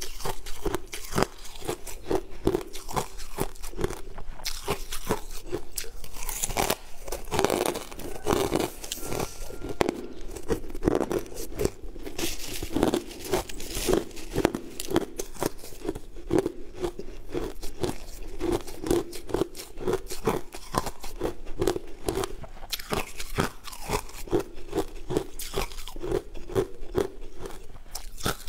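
Close-up crunching and chewing of a mouthful of crushed ice. The crisp crunches come thick and fast, in an unbroken chewing rhythm.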